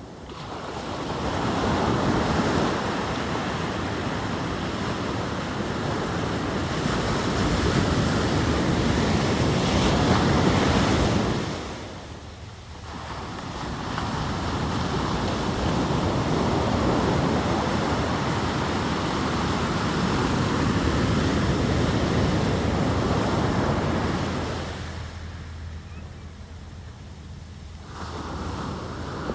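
Ocean surf breaking and washing up the beach in long swells, with quieter lulls about twelve seconds in and again near the end. Wind buffets the microphone throughout.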